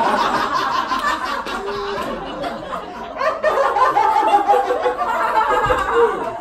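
Audience laughing, loudest at the start, dying down and then swelling again about three seconds in.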